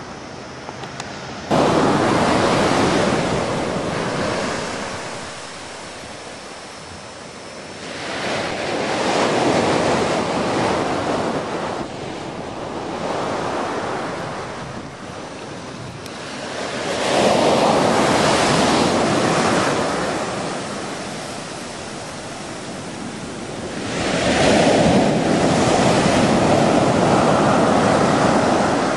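Ocean surf breaking on a sandy beach: waves crash and wash up the shore in four long swells, rising and falling every seven or eight seconds. The surf starts abruptly about a second and a half in, after a quieter opening.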